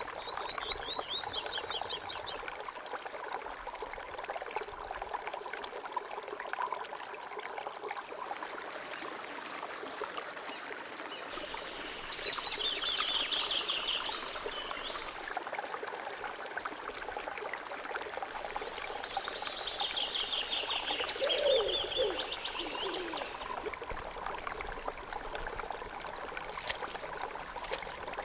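Steady trickle of running water, with a bird singing fast trills of repeated high notes three times: at the start, about 12 seconds in and about 20 seconds in. Near the end, water splashes as a garment is sloshed about in the pool.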